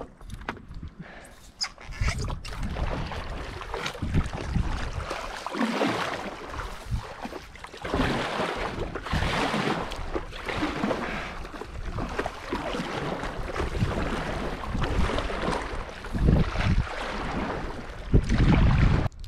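Paddle strokes swishing and splashing water beside a stand-up paddleboard, in uneven surges, with wind rumbling on the microphone near the end.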